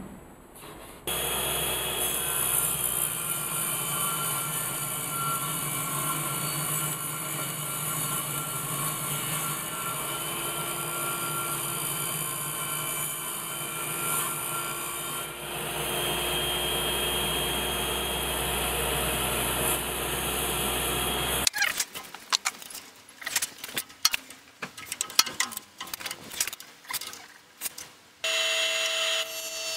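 Table saw running and cutting a sheet of laminated particle board, a steady machine sound whose tone shifts about halfway through. It stops sharply and is followed by irregular knocks and clatter. Near the end a jointer starts up with a steady hum.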